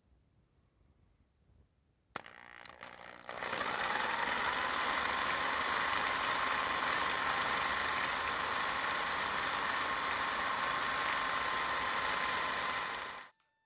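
Corded electric drill starting up about two seconds in and spinning up, then running steadily with a whine for about ten seconds as its bit bores a pilot hole into the concrete floor through the lift base plate's anchor hole. It cuts off suddenly near the end.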